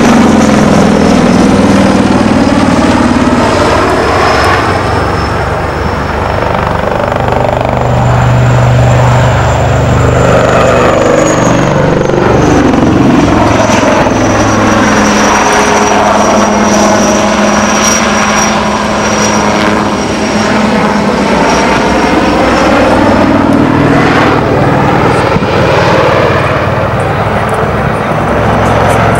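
HAL Light Combat Helicopter in flight: steady rotor throb under a thin high turbine whine from its twin turboshaft engines. The whine drifts up and down in pitch and the sound swells and fades a little as the helicopter manoeuvres.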